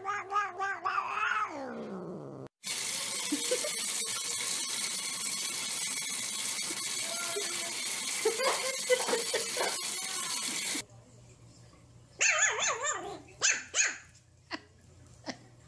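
A cat's long drawn-out meow that drops in pitch at the end. Then a kitchen faucet runs water steadily into a sink, with a small dog giving a few short cries. Then a small puppy yips several times in quick succession.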